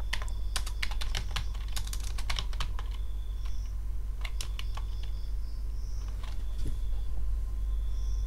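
Computer keyboard being typed on in short bursts of keystrokes, densest in the first three seconds, over a steady low hum.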